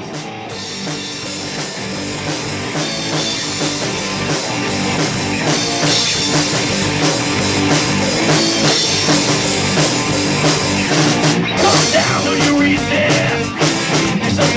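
Rock band playing an instrumental passage on electric guitar, bass and drum kit, building steadily louder through the first half and staying loud.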